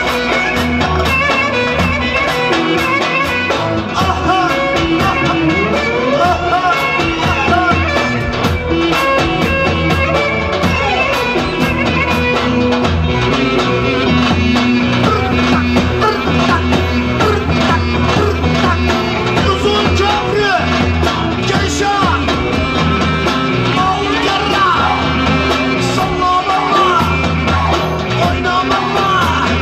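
Loud Roman havası dance music played continuously, with a steady beat and an ornamented lead melody.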